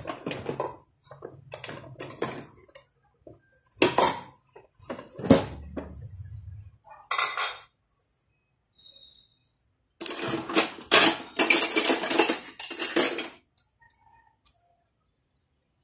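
Cookware and metal utensils clattering and clinking as a pan is handled: scattered knocks, then a dense run of clatter about ten seconds in that stops about three seconds later.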